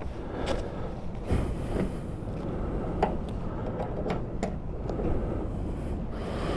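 Gas pump filling a motorcycle's fuel tank: a steady low rumble with a few light clicks and knocks from the nozzle and filler.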